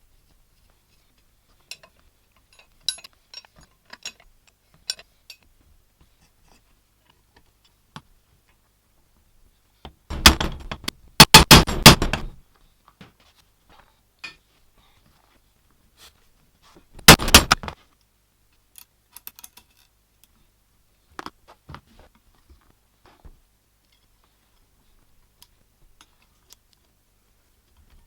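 Metal parts handled on a workbench: scattered light clinks and taps, with two loud bursts of rapid rattling clicks, about ten seconds in and again a little after seventeen seconds.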